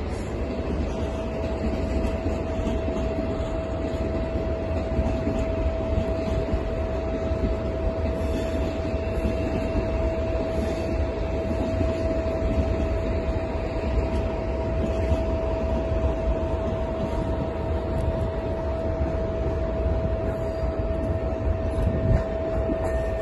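Steady running noise of a train in motion, heard from inside the carriage: a low rumble with a single steady whine held over it.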